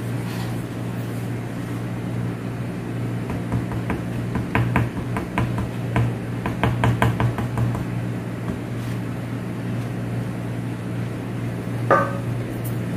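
Thin clear plastic chocolate-egg moulds clicking and tapping against a stainless steel counter as hands press and handle them, with a run of quick clicks in the middle and a short squeak near the end, over a steady low hum.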